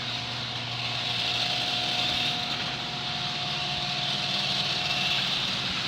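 Genie screw-drive garage door opener running as it raises the door: a steady motor hum with a thin whine on top.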